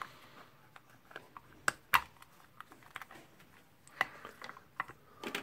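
Small metal parts being handled and fitted by hand during reassembly: scattered light clicks and clinks, with a couple of sharper knocks about two seconds in and another near four seconds.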